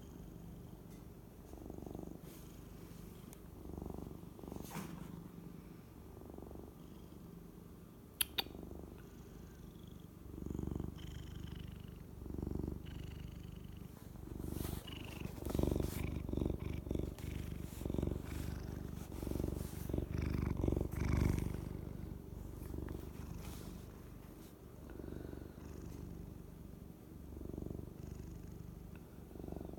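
Domestic cat purring steadily, the low rumble swelling and easing about every one to two seconds with its breathing, loudest in the middle stretch. A brief sharp click about eight seconds in.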